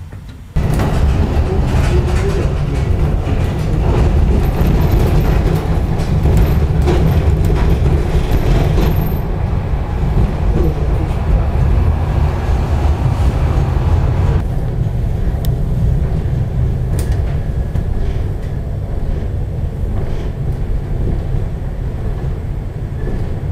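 Tram running along rough, worn interurban track: a steady low rumble of wheels and running gear with scattered knocks and rattles, starting abruptly about half a second in. The higher rattle eases about two-thirds of the way through.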